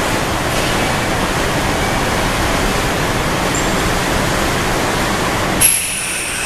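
A loud, steady hiss from a standing Kintetsu 5820 series electric train cuts off suddenly with a click about five and a half seconds in. A thin, high whine then falls slowly in pitch, like equipment spinning down.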